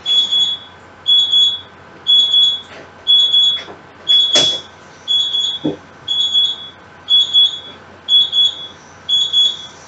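Electric oven's timer beeping: a high half-second beep about once a second, signalling that the set baking time is up. A knock sounds about four seconds in.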